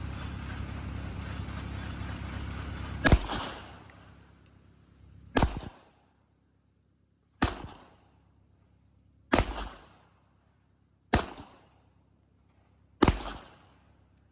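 Six slow, deliberate shots from a Glock 19-pattern 9mm pistol with a compensated barrel, about two seconds apart, each with a short echo. A steady low hum runs until the first shot about three seconds in.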